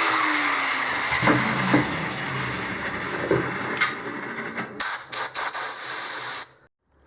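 Angle grinder disc grinding the stone of a calcite ammonite, a loud hissing rasp that eases off over the first few seconds. Near the end come several short, loud bursts of grinding, then it cuts off abruptly.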